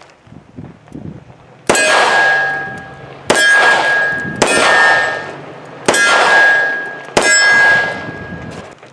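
Five shots from a Taurus 85 Ultra Lite five-shot .38 Special revolver firing +P rounds, each shot followed at once by the ringing clang of the steel target it hits. The shots come about one to one and a half seconds apart, and each ring fades over about a second.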